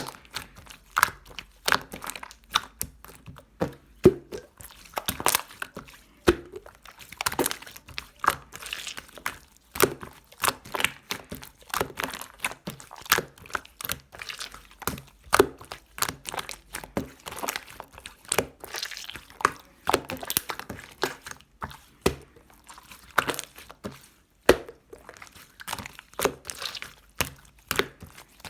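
Slime being squished and folded by hand, making an irregular run of small clicks and pops.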